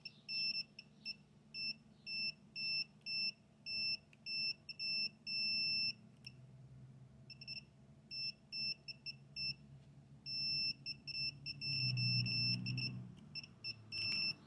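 Multimeter continuity tester beeping in short, irregular high-pitched beeps, with a few longer held tones, as its probes touch and lift off the fare-box motor's contacts; it falls silent for about a second around the middle.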